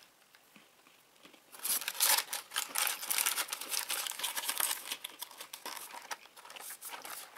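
Crisp crunching and crackling of a Kambly Matterhorn hazelnut biscuit being bitten into and chewed. It starts about one and a half seconds in and goes on in uneven crackles.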